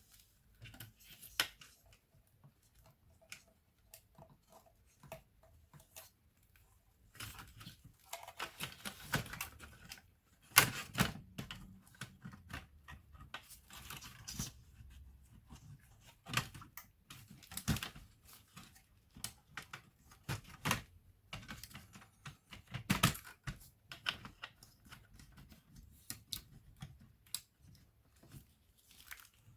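Irregular clicks, taps and scraping of hands and tools working on a laptop's plastic case and small parts, busiest in the middle with a few sharper knocks.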